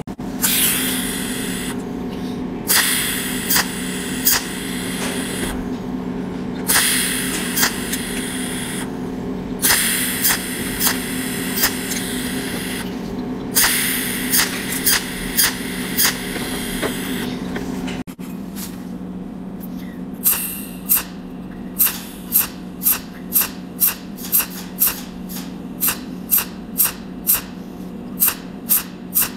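Cold welding machine's tungsten arc firing spot welds along a seam: each spot a sharp snap. The first half has hissing runs a few seconds long with snaps inside them. After a cut about 18 seconds in, there is an even train of snaps, about two a second. A steady low hum runs underneath.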